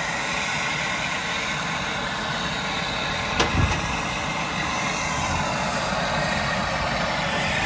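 Handheld brazing torch burning steadily as it heats a copper refrigerant pipe joint, with one short knock about three and a half seconds in.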